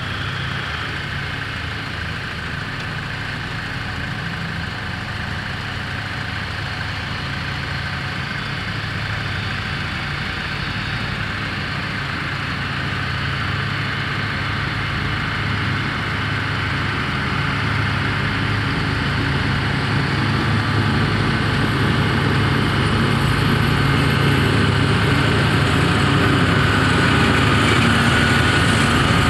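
Diesel locomotive of an approaching freight train, its engine drone growing steadily louder as it nears.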